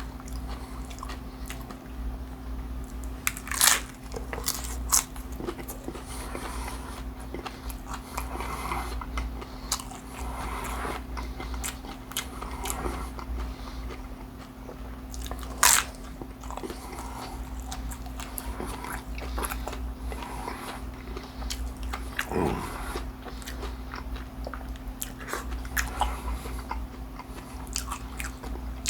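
Close-miked eating: crunching bites into a crispy fried fish taco and chewing, with sharp crunches scattered throughout and the loudest about 3.5 and 16 seconds in. A steady low hum runs underneath.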